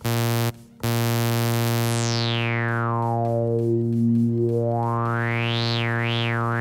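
Native Instruments Massive software synthesizer, played from an Akai MPD218's pads and knobs. A short note sounds, then a held low note whose resonant filter is swept with a knob. The tone slowly closes from bright to dull, then opens and closes twice more quickly near the end.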